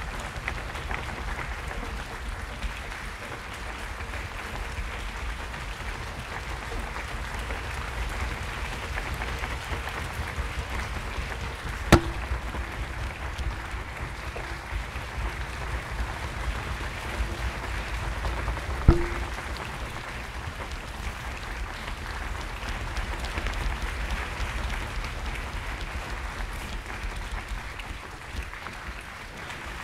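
Audience applauding steadily. Two sharp knocks stand out, about seven seconds apart.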